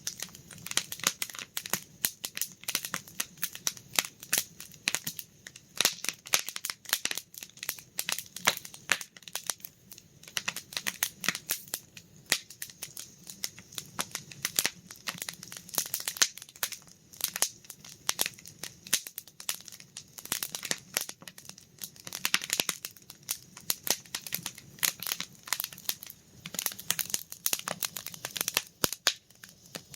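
Wood campfire crackling and popping, with dense irregular snaps over a soft low rumble of the burning fire.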